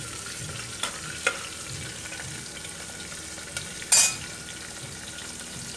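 Green chillies, onion and cumin sizzling in hot oil in a pressure cooker while being stirred, with a few light clicks and one louder clank about four seconds in.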